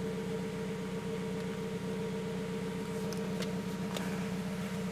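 Turbocharged 2000 Honda Civic EX engine idling with a steady hum; the owner says it is running pig rich despite the fuel map being pulled to negative 100%. A few light clicks come about three to four seconds in.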